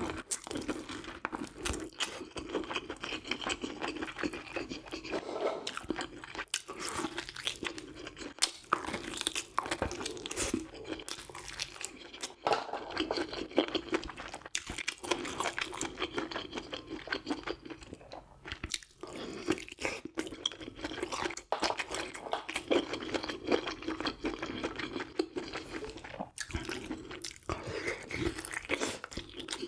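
A person eating close to the microphone: continual chewing and crunching, made up of a dense run of short clicks and smacks.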